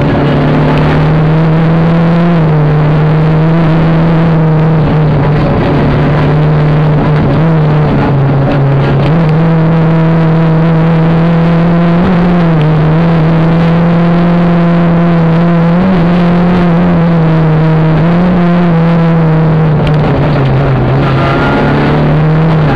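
Rally car engine driven hard, heard from inside the car, with its note dipping and climbing again and again through the stage.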